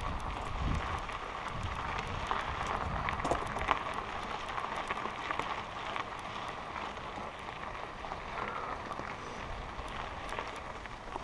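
Mountain bike rolling fast down a loose dirt and gravel trail: a steady rush of tyre and riding noise with many scattered small clicks and rattles.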